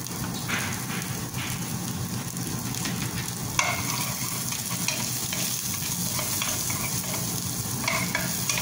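Sliced garlic, onion and ginger sizzling in hot oil in a frying pan, stirred with a wooden spatula that scrapes and taps against the pan, with one sharper knock about three and a half seconds in.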